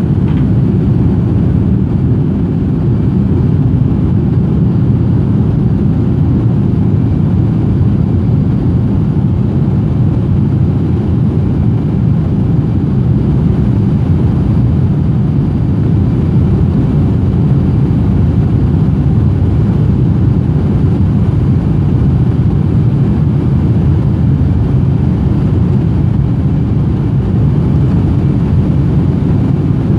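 Cabin noise of a Boeing 757-200 taxiing: a steady low rumble of the engines at low thrust and the airframe rolling over the taxiway, heard inside the cabin.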